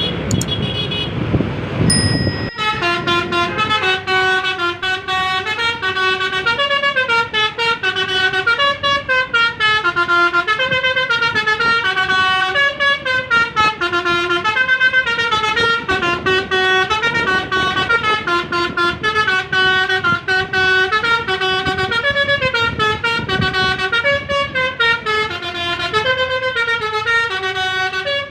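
Telolet Basuri multi-tone bus horn playing a quick melody, stepping from note to note without pause. It starts abruptly a couple of seconds in, after a rumbling, wind-like noise.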